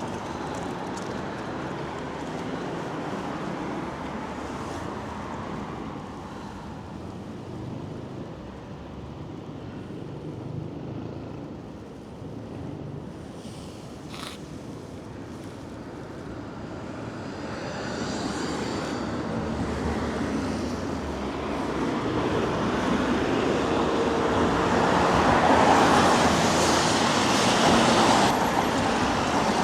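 Street traffic on a rainy night: a steady hiss of cars passing on wet roads. It builds from about two-thirds of the way in as a vehicle passes close, loudest near the end.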